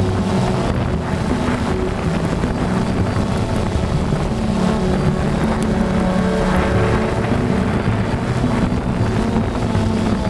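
DJI Phantom 2 quadcopter's electric motors and propellers, heard from its onboard camera, running steadily with the pitch shifting every second or so as it manoeuvres, and wind rushing over the microphone.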